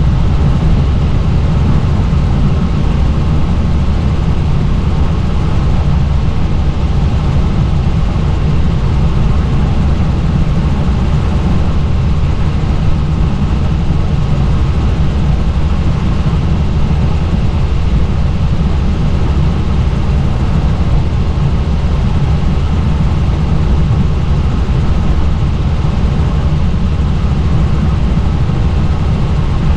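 Helicopter in flight, a loud, steady, deep engine-and-rotor drone that holds unchanged throughout.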